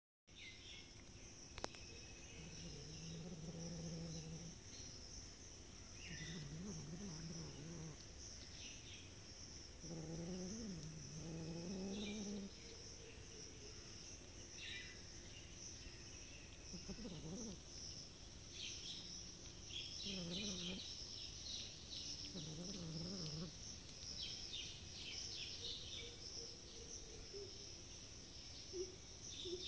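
Outdoor ambience with a steady high insect drone and scattered bird chirps, broken every few seconds by short, low, wavering animal calls.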